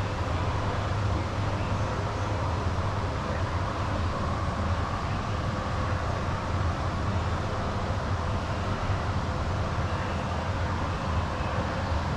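Steady low mechanical hum under an even background rush that holds level throughout: indoor room tone with machinery running.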